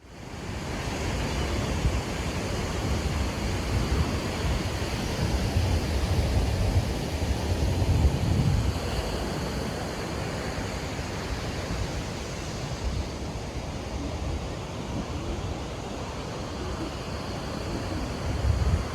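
Sea surf washing steadily onto a beach, mixed with wind buffeting the microphone in low rumbling gusts, strongest in the first half and again near the end.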